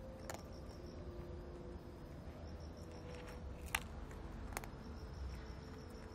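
Black cat eating dry kibble from a plastic tub: a few sharp crunching clicks about a third of a second in, just under four seconds in and about four and a half seconds in, over a faint, evenly pulsing insect chirp.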